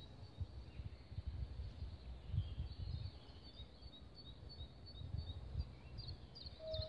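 Uneven low rumble of wind on the microphone, with small birds chirping: a run of short high chirps in the middle.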